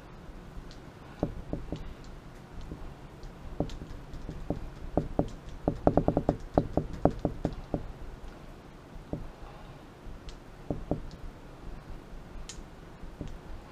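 HeroClix figures and dice handled on a tabletop: scattered sharp plastic knocks and clicks, with a quick, even run of about a dozen clicks near the middle.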